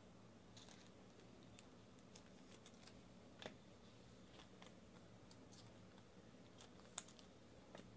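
Near silence: room tone with a few faint, scattered clicks, the clearest about three and a half seconds in and a sharper one about seven seconds in.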